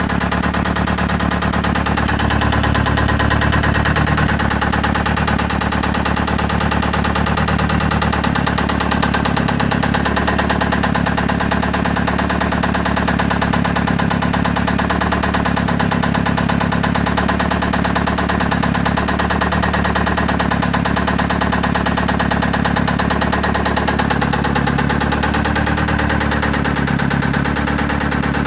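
Mitsubishi 4G63 inline-four engine running steadily at idle with a fast, even knock, which the owner puts down to the fourth cylinder.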